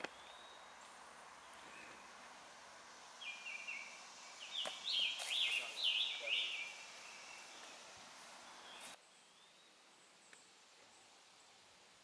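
A bird singing a run of about a dozen clear, quick notes, each dropping in pitch, lasting about three seconds, over a steady outdoor hiss.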